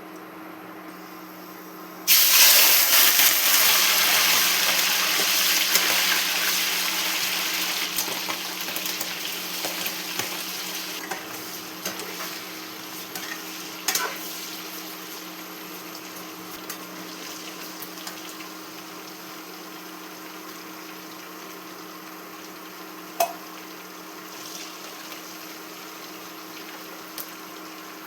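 Food hitting hot oil in a pan, starting with a sudden loud sizzle about two seconds in that slowly dies down over the following seconds. A few sharp clicks of a utensil against the pan come later, over a steady low kitchen hum.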